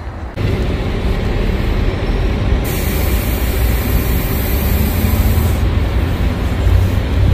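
Wind buffeting a phone microphone outdoors: a loud, steady low rumble, with a stronger hiss for about three seconds in the middle.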